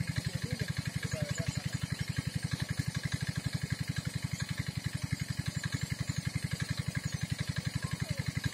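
A small engine running steadily with a fast, even, low chug that does not change in speed.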